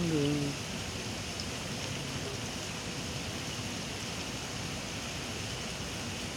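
Steady rushing, splashing water from pond aerators churning the surface of a fishing pond. A brief bit of a man's voice comes right at the start.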